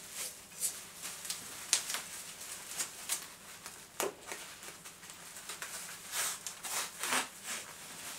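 Clear plastic bags and tissue paper rustling and crinkling as small fragments are packed into them by hand: a string of short, irregular crackles, with a few louder ones around the middle.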